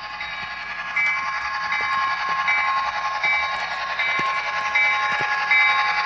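Model diesel locomotive pulling a freight train along its track, a steady running sound with a repeating pattern of tones that grows louder about a second in as it approaches, with a few faint clicks.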